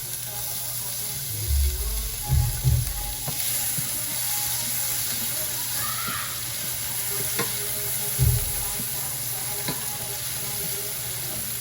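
Onion frying in oil and butter in a pot, a steady sizzle while it is stirred. A few dull low bumps come between about one and three seconds in and again about eight seconds in.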